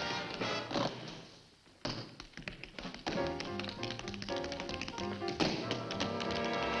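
Tap dancing: tap shoes rapping out rhythms on a wooden stage floor over jazz band music with a trumpet. The sound drops away briefly about a second and a half in, then the taps and the band come back in.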